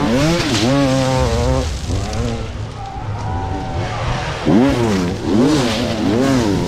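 Several motocross bikes racing, their engines revving up and falling back over and over as the riders work the throttle, with the pitch swelling loudest about four and a half seconds in.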